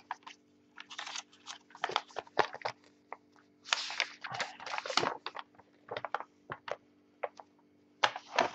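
Folded paper instruction leaflet being unfolded and smoothed flat, the paper crinkling and rustling in irregular bursts.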